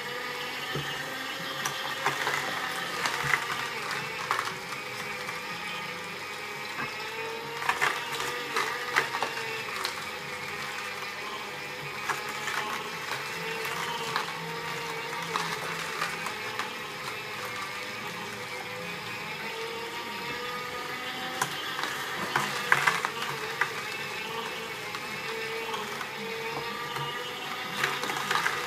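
Two slow juicers, a Hurom HU-300W and a Sharp Juicepresso EJ-CP10B, running together and crushing carrot sticks: a steady motor whine, with clusters of sharp cracking and crunching as carrots are pushed in and broken up by the augers.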